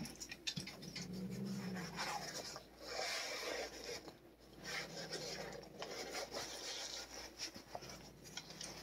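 Leather work glove rubbing and scraping in irregular swishes, with a low steady growl from the cat about a second in and again in the middle.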